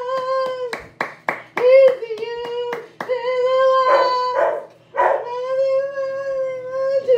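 A woman singing along, a cappella, to music only she can hear: several long, wordless held notes, with a few sharp hits between them.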